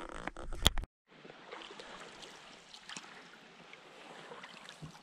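A sharp knock just under a second in, then, after a short break, soft steady trickling and lapping of water around a canoe gliding on a calm river as it is paddled.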